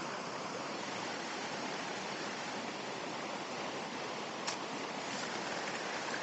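River rapids running steadily: an even rush of shallow water flowing over stones.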